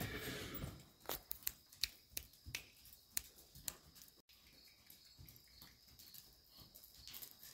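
A horse's hoofbeats on soft arena dirt, faint and distant, heard as irregular sharp clicks a few times a second.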